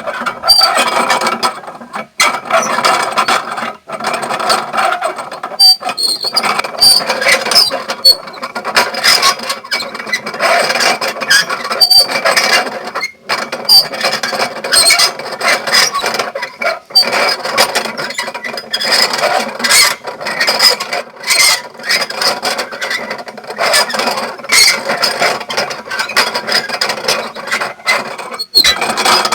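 Small sugarcane mill (engenhoca) running, its gears and rollers clattering irregularly with brief high squeaks.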